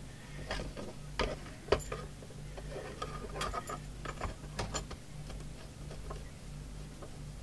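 Metal clicks, knocks and light scraping as a coax plug is handled and screwed onto an SWR meter's socket, over a steady low hum.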